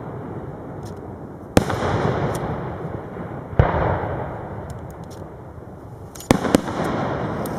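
Aerial firework shells bursting: a sharp bang about a second and a half in, another about three and a half seconds in, and a close pair near the end, each followed by a long rolling echo.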